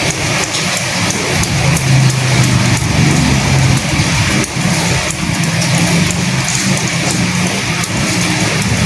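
Steady rain falling with wind, many fine drops ticking on top of a constant rushing hiss and a low rumble.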